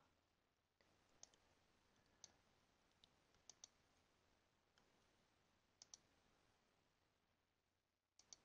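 Faint computer mouse button clicks, about eight spread out with a few in quick pairs, as points are added to a route on a web map.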